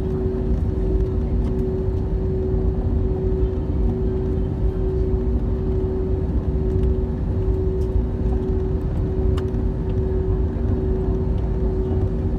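Steady low rumble of an airliner with a constant hum running through it, the level even throughout.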